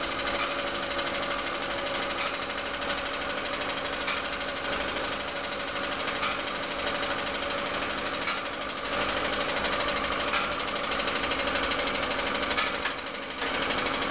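Compressed-air spray gun hissing steadily as paint is sprayed through a stencil onto a truck body, over the steady running of an air compressor. The hiss thins briefly about nine seconds in and again near the end.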